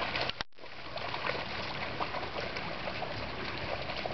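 Shallow river water running, with scattered small splashes. The sound breaks off completely for a moment about half a second in.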